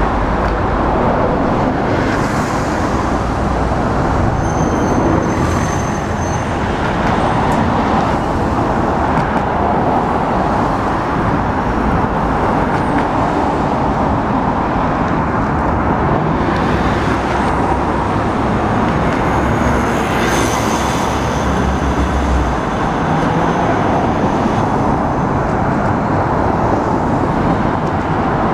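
Steady roadside traffic noise from cars passing on a busy city street, with vehicles swelling past now and then and a heavier low rumble for several seconds past the middle.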